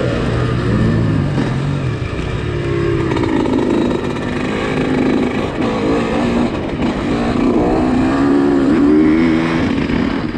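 Yamaha YZ125's two-stroke single-cylinder engine on a motocross track, its revs rising and falling over and over as the bike is ridden and shifted.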